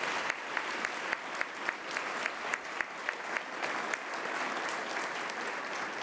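Audience applauding, with one nearby pair of hands clapping steadily at about three to four claps a second above the crowd until about two-thirds of the way through.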